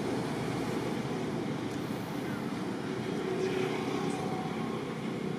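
Steady low rumbling background noise with no distinct events, of the kind made by distant engine traffic or wind.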